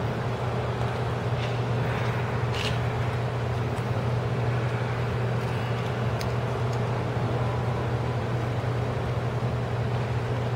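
Steady low hum with an even hiss of background noise, with a couple of faint ticks about three and six seconds in.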